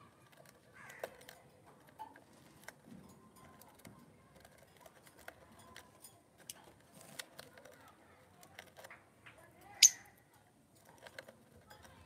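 Lovebirds in a cage: scattered soft clicks and taps as a bird works its beak on the wooden nest box, with one sharp high chirp about ten seconds in, the loudest sound.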